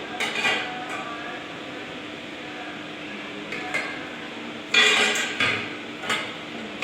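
Metal objects clinking and clanking in a few short clusters, the loudest a little past halfway, over a steady low hum.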